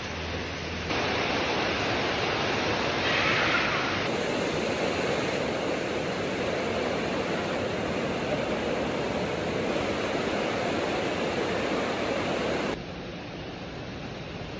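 Heavy rain falling, a steady hiss that gets abruptly louder about a second in and drops back down near the end.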